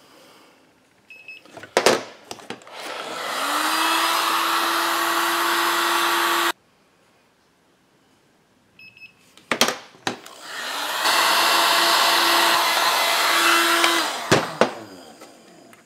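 Handheld electric heat gun switched on twice, each time its fan spinning up to a steady whine with rushing air for about four seconds before it is switched off, the first run cutting off abruptly. Clicks and knocks of the tool being handled come before each run. It is heating a chainsaw crankcase half so a new main bearing will drop in.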